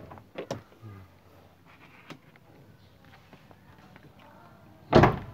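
The hood release lever under the dashboard of a Toyota Kijang Innova is pulled with a sharp click, followed by a few small clicks and light handling sounds. A loud thud comes near the end.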